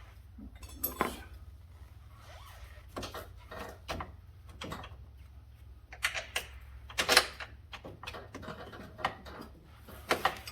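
Irregular metallic clicks and knocks of tools and parts being handled while fitting an ATV suspension arm and its bolts, the loudest knock about seven seconds in, over a steady low hum.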